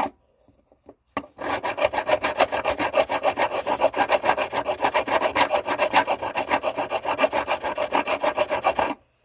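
Hand file rasping over the end of a silverware piece clamped in a miter vise, in quick, even back-and-forth strokes that start about a second in. The edge is being filed flat and flush so that the soldered seam will have no gap.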